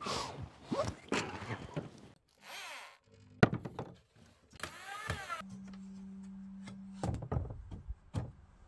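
Wood being handled and worked: a series of knocks and thunks, with scraping slides and a short steady hum in the middle.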